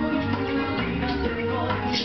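Music playing from a television.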